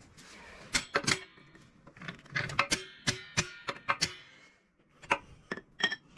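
Metal tools and parts being handled: a run of sharp metallic clicks and clanks, some ringing briefly, with a short pause past the middle.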